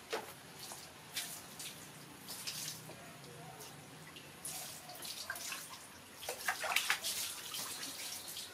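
Water splashing and sloshing in a plastic tub as a young macaque swims and paddles in it, in irregular splashes, the loudest cluster about six to seven seconds in.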